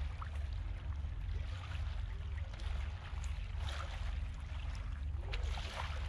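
Wind rumbling on the microphone over shallow seawater lapping and trickling at the edge of a seaweed-covered shore. The small splashes and crackles come more thickly from about three and a half seconds in.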